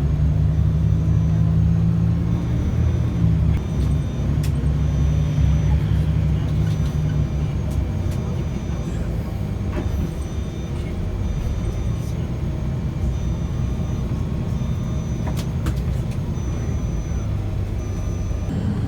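Steady low drone of a moving vehicle's engine and road noise, a little louder for the first several seconds, with a few faint clicks.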